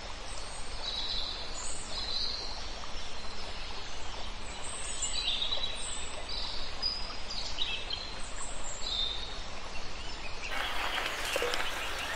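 Small birds chirping: many short, high-pitched calls over a steady outdoor hiss. About ten and a half seconds in, the chirps give way to a louder, rougher hiss.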